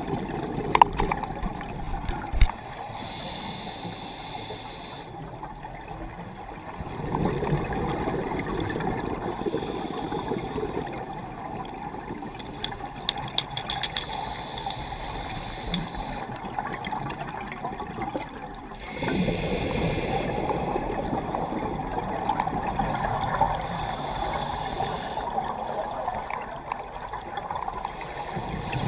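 Scuba regulator breathing heard underwater: a hiss of inhaled air followed by a rush of exhaled bubbles, repeating every several seconds, with a brief cluster of small clicks about halfway through.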